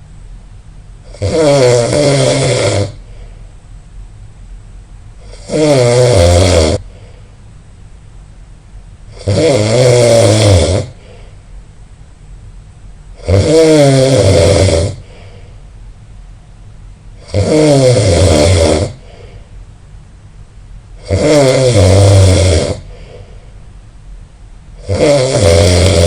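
Loud snoring: a long snore with a wavering pitch on each breath, about every four seconds, seven in all, much quieter between them.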